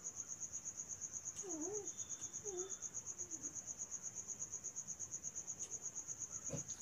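Insect chirping in a steady, high-pitched pulsing trill of about nine pulses a second.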